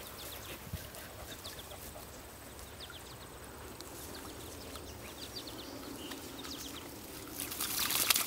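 Water lapping and splashing faintly as a dog swims, with a louder burst of splashing near the end as it snaps at the water.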